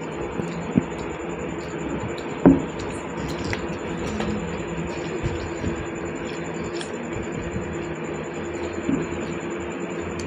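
Someone eating rice with their hands off a plate: soft squishes and small clicks, with one sharper click about two and a half seconds in, over a steady hum.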